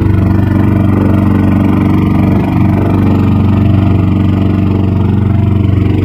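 A small motorboat's engine running steadily, a low even drone that holds the same speed throughout.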